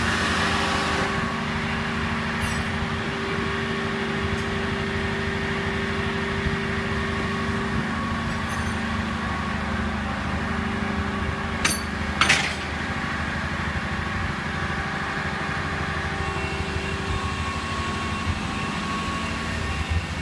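Crane truck's engine running steadily while it lifts a load, with a few brief clicks or knocks a little past the middle.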